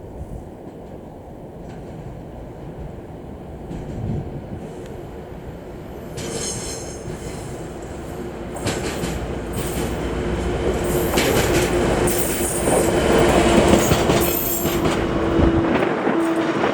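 DE10 diesel locomotive-hauled train approaching and passing, growing louder, with high-pitched wheel squeal from about six seconds in and the clatter of wheels over the rail joints.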